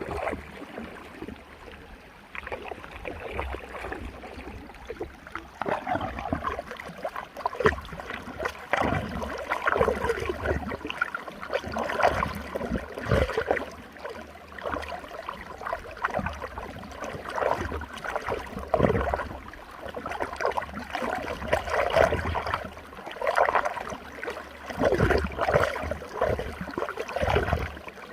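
Running water swirling and gurgling in a whirlpool, with irregular splashing surges.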